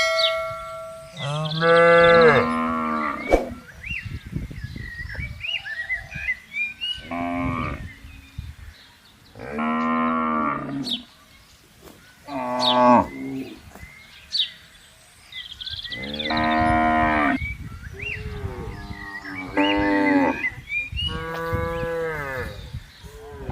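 Cattle mooing repeatedly: about seven separate moos, each a second or two long, with short pauses between them.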